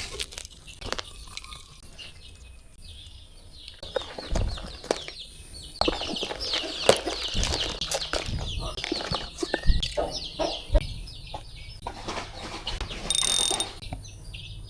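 Birds calling, a dense run of short, quick chirps and clucks through the middle.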